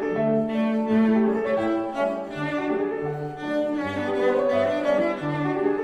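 Background instrumental music: held notes over a low bass line that moves to a new note about every half second.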